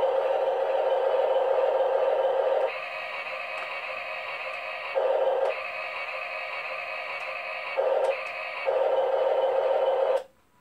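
Tinny electronic sound effect from a remote-control toy car's small speaker: a steady, hissy tone that switches between a lower and a higher pitch several times, then cuts off suddenly near the end.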